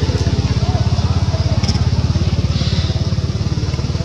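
A small engine running steadily with a fast, even low pulse, like a motorcycle idling.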